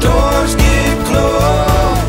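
Background music: an upbeat pop song, with a melody over a steady beat.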